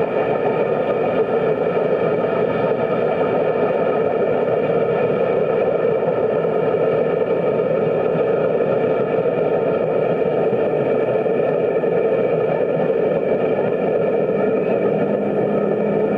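A steady mechanical whirring hum with several constant high tones over it, unchanged in level or pitch throughout.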